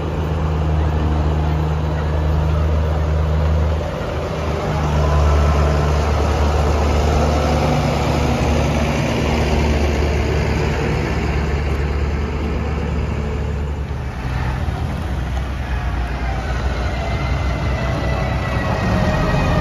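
Large diesel engine idling with a deep, steady drone, which eases briefly about four seconds in.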